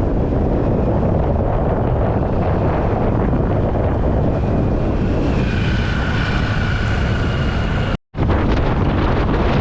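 Heavy wind buffeting the microphone, a loud steady rumbling hiss. A faint high whine joins about five seconds in, and the sound drops out for an instant near the end.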